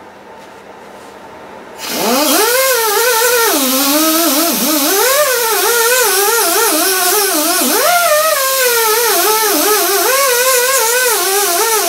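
Air die grinder with an abrasive disc spinning up about two seconds in, then whining loudly against the cast iron deck of an LQ4 engine block, its pitch wandering up and down.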